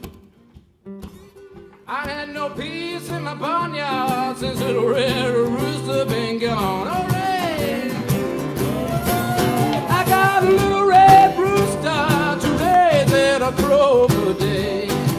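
Acoustic blues jam on guitars and cajon with a man singing. After a couple of seconds of a few sparse notes, the whole band comes in at once, with slapped cajon beats and bending, wailing vocal lines over the strummed guitars.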